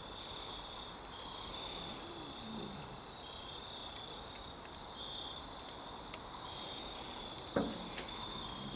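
Crickets trilling steadily in the background, a constant high-pitched chirring, with a single sharp tap about three-quarters of the way through.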